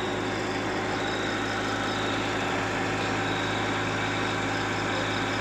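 Yanmar 4TNV98 four-cylinder diesel engine of a 35 kVA silent-canopy generator running steadily at normal speed just after starting, with no change in speed or loudness.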